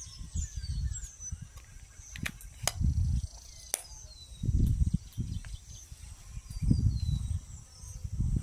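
Birds chirping in short, falling calls over a steady high insect drone, with swelling low rumbling noise. A few sharp knocks come near the middle.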